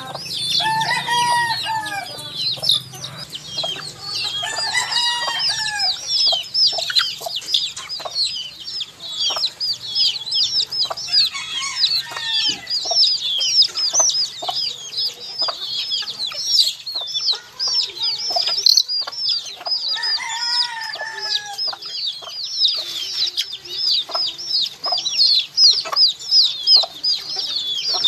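A brood of baby chicks peeping nonstop: a dense chorus of short, high, falling peeps. A few times, lower and longer arched calls rise and fall among them.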